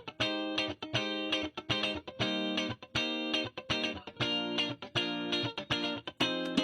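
Background music: an electric guitar playing short, chopped chords that cut off sharply several times a second.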